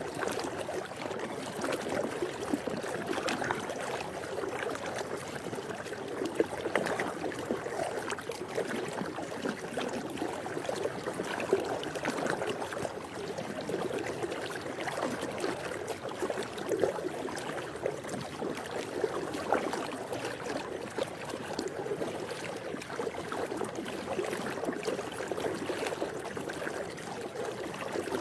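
Water moving in a swimming pool: a steady sloshing with small irregular splashes all through.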